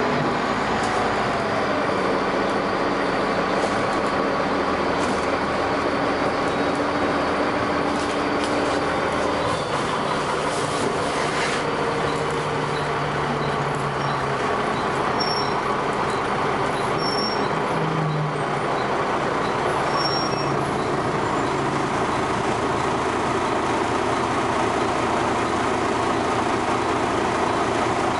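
Dennis Arrow double-deck bus running, its engine and ZF gearbox making a steady mechanical drone whose pitch lines shift up and down.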